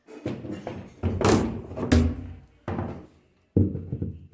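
An irregular series of about five knocks and clatters, each a short cluster of hits, the two about 1.3 and 2 seconds in the loudest and brightest.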